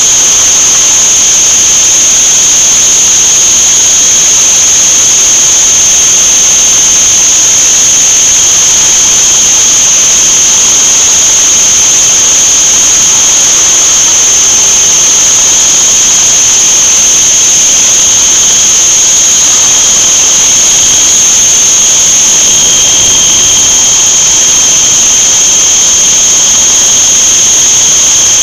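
Krisbow CNC milling machine running: a steady high-pitched spindle whine over an even hiss of machine noise, with a weaker lower whine that grows clearer about two-thirds of the way through.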